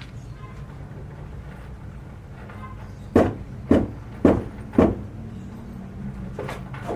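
Four sharp knocks about half a second apart over a steady low hum.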